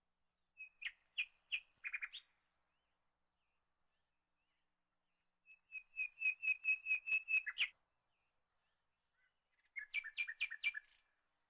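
A small bird chirping in three bursts of quick, sharp notes, the middle burst the longest and fastest, at about five notes a second.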